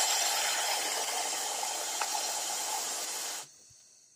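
Compressed-air blow gun hissing steadily at light pressure into a lawn mower carburetor's drain hole, purging leftover stale gasoline and water. The hiss cuts off suddenly about three and a half seconds in.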